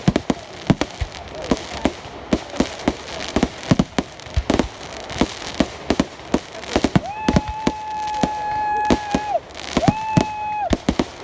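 Fireworks exploding in rapid bangs and crackles. In the second half a steady high-pitched tone sounds twice, first for about two seconds, then briefly.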